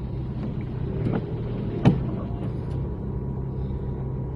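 Car engine running with a steady low hum, heard from inside the car's cabin, with a sharp knock about two seconds in.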